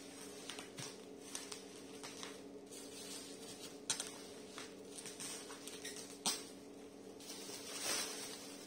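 Black bubble-wrap plastic crinkling and rustling as the wrapped parcel is handled, in irregular crackles with two sharper snaps about four and six seconds in, and a denser rustle near the end.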